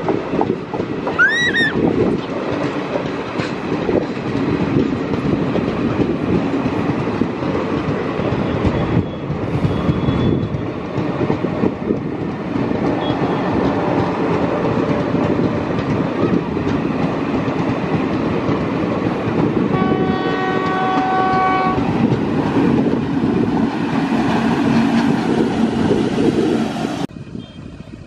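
Passenger coaches of a train rolling past with a steady rumble and the clatter of wheels over rail joints. About twenty seconds in, a locomotive horn sounds once for about two seconds. Near the end the train noise drops away abruptly.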